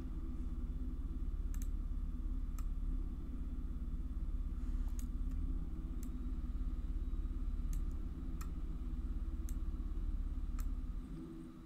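Computer mouse clicking, about ten separate sharp clicks spaced roughly a second apart, over a steady low hum that drops away near the end.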